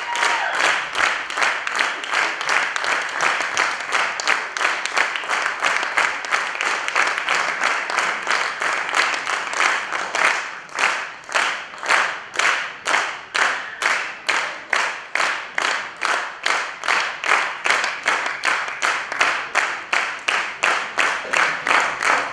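Theatre audience applauding, a dense crowd clapping that about halfway through falls into rhythmic clapping in unison, at roughly two to three claps a second.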